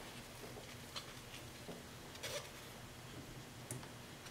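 Faint handling sounds: a few light clicks and rustles as hands work car wiring into a plastic wire-tap connector.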